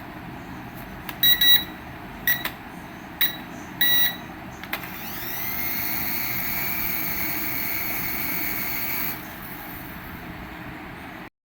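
A remote-control toy beeps several times in short electronic tones. Its small electric motor then whines up to speed, runs steadily for about four seconds and stops.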